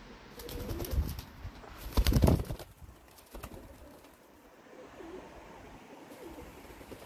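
Domestic pigeons cooing softly in a loft, with loud flurries of wing flapping about half a second in and again about two seconds in; the second flurry is the loudest sound.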